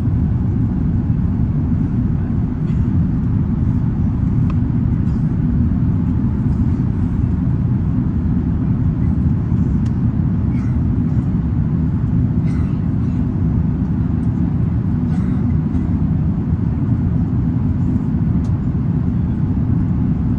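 Steady low rumble of engine and airflow noise inside the cabin of an Airbus A380-861, with its Engine Alliance GP7270 engines, unchanging in level, with a few faint light clicks of cabin rattle.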